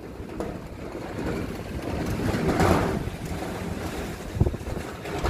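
Sandstorm wind gusting hard and buffeting the microphone with a low rumble, swelling into a stronger gust about halfway through.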